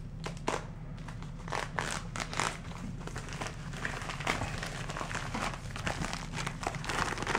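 A plastic packaging bag crinkling and rustling as it is handled and opened, in quick irregular crackles that grow busier after the first second or so.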